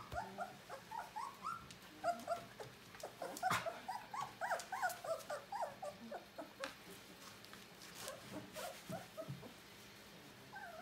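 A litter of young sled-dog puppies whimpering and whining in many short, high cries that rise and fall in pitch, thickest in the first two-thirds and thinning out near the end. A few sharp knocks or scrapes mix in, the loudest about three and a half seconds in.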